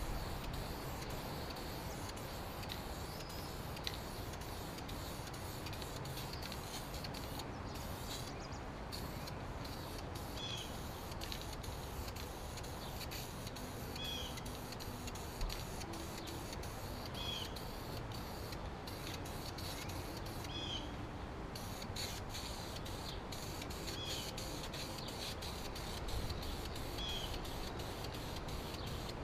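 Aerosol can of wrinkle paint spraying: a steady hiss with a couple of short breaks between passes.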